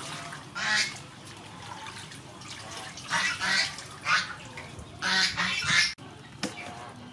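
Domestic waterfowl honking in several loud bursts, the longest near the end.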